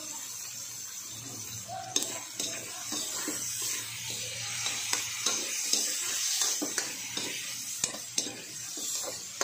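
Pork, onion and tomato sizzling in a metal wok while a metal spatula stirs them: a steady frying hiss, with repeated clicks and scrapes of the spatula against the pan starting about two seconds in.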